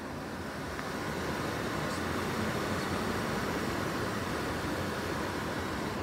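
Steady whoosh of an Atwood RV furnace's blower fan running, with a low hum under it, growing a little louder about a second in.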